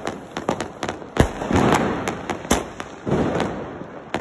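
Fireworks going off: a quick string of sharp bangs and crackles, with a hissing rush between the louder reports, which come about a second in and again past halfway.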